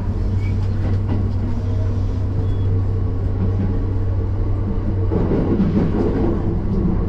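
Steady low hum and rumble of a running vehicle, with a louder, busier stretch about five seconds in.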